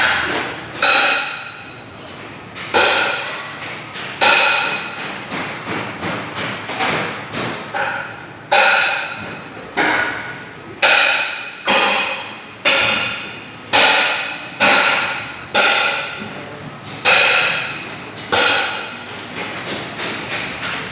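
Qualitas Q600P wall fans giving off repeated metallic clanks, about one a second at uneven spacing. Each clank rings on briefly with a bright metallic tone before it dies away.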